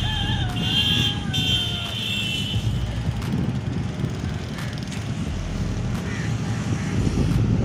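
A steady low rumble with a faint constant hum under it, running throughout. In the first two to three seconds a high, steady chirring and a thin, wavering whistle that falls slowly sound over it.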